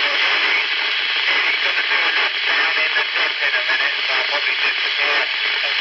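Uniden 300 CB radio on FM receiving an incoming transmission: a faint voice buried under steady static hiss from the set's speaker.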